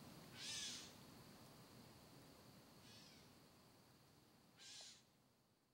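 Three short, faint animal calls, about a second in, near the middle and near the end, each ending in a falling pitch, over a faint steady high tone.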